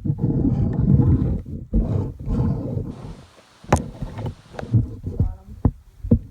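Handling noise as a small die-cast toy car is turned over in the hands close to the microphone: choppy low rubbing and rumbling for the first couple of seconds, then a few sharp clicks.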